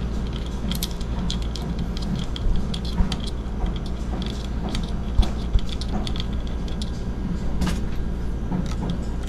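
Small clicks and a few light knocks of metal and plastic parts being handled as the airsoft revolver's grip is opened and a CO2 cartridge is readied, over a steady low hum.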